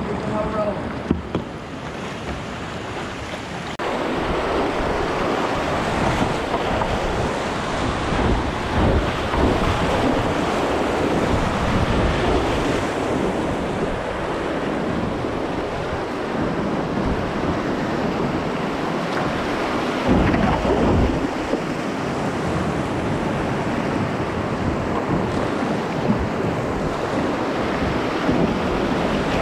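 Whitewater rapids rushing and splashing around a kayak, close to the microphone, with some wind buffeting the mic. The rushing gets louder about four seconds in as the boat enters the rapids.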